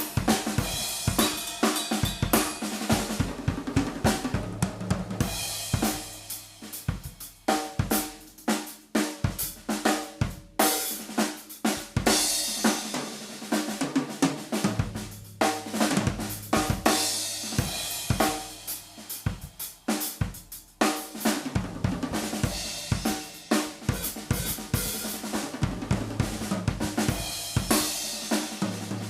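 Yamaha Stage Custom Birch bebop drum kit being played: snare, bass drum, hi-hat and cymbals in a continuous run of strokes, with a few short lulls where the hits thin out.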